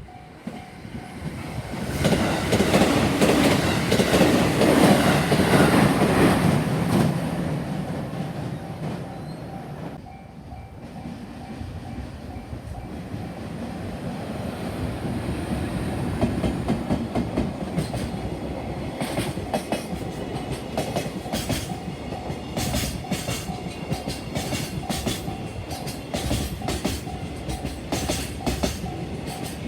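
Trains passing on the JR Tokaido Line. The first goes by loudly over a few seconds. After a brief lull a second, long train follows with a steady clickety-clack of wheels over the rail joints.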